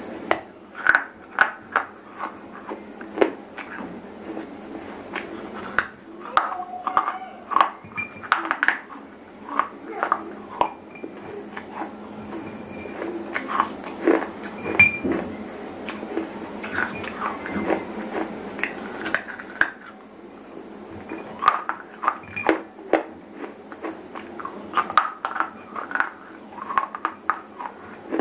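Close-miked biting and chewing of brittle baked terracotta clay broken from a diya, sharp irregular crunches several times a second with a few brief pauses. Near the end there are light clinks as clay pieces are picked up off a ceramic plate.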